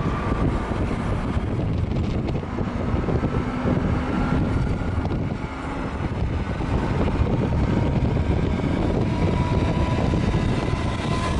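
Steady road noise of a car driving at speed on a highway, heard from inside the car: a low rumble of tyres and engine. A faint low hum fades out in the first couple of seconds.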